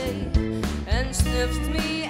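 Live band music: a woman singing into a microphone over electric guitar, a strong bass line and drums.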